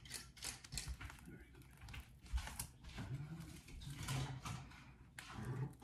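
Scattered light clicks and rustles of hands-on kitchen work, irregular and without a steady rhythm.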